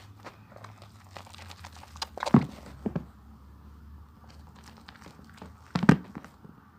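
Bar of soap being lathered by hand, a run of small clicking sounds with three louder bumps: two close together just past two seconds in, and one near the end.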